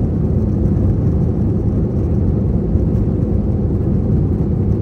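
Steady, low cabin drone of an Airbus A321 climbing after takeoff: engine and airflow noise heard from inside the passenger cabin.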